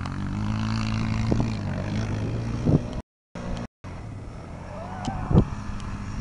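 ATV engine running steadily as a quad rides across the sand dunes, with a couple of wind buffets on the microphone. The sound drops out briefly a few times about halfway through.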